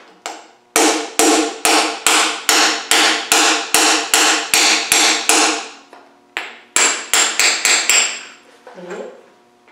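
A hammer driving a core plug into the side of a Land Rover Series 1 engine block, striking the plug through a driver. There is a run of about a dozen ringing metal strikes, about two a second, then after a short pause a quicker run of about seven strikes.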